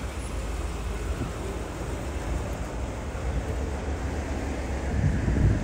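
Wind rumbling on the microphone over a steady outdoor hum of parking-lot traffic, growing louder about five seconds in.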